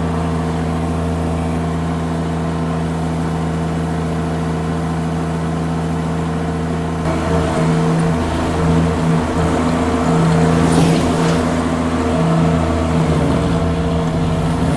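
Derette V1000 mini skid steer's engine running steadily, then from about halfway it gets louder and its pitch wavers up and down as the machine is worked.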